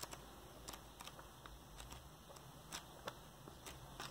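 Near silence with a few faint, soft clicks of handling scattered through it.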